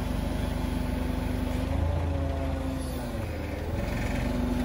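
Forklift engine running steadily while the hydraulic mast lifts a load, its note rising and dipping slightly a couple of times.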